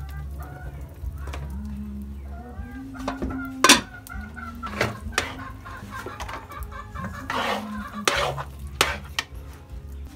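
A metal spoon scraping and knocking against a wide cooking pan as thick biko (sticky rice cooking down) is stirred, with sharp knocks about four, five and eight seconds in. Chickens cluck throughout.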